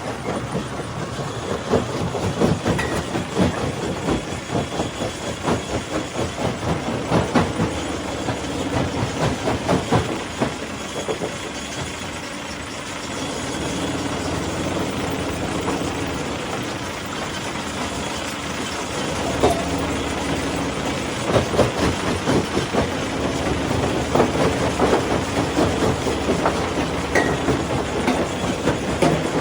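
Stone crusher running, with rock being crushed in a dense, irregular clatter of knocks and rattles over the machine's steady hum. The knocking eases for several seconds past the middle, leaving mostly the hum, then picks up again.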